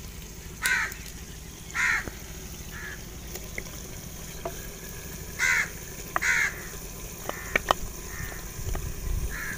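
A crow cawing, four loud caws in two pairs about four seconds apart, with a few fainter caws between. Near the end come several light knocks of a wooden spoon against the plate and clay pot as paste is scraped in.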